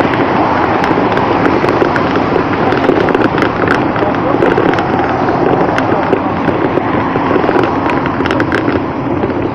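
Ride noise picked up by a bicycle-mounted camera: a steady loud rush with a dense crackle of clicks and rattles from the mount jolting over the rough road shoulder.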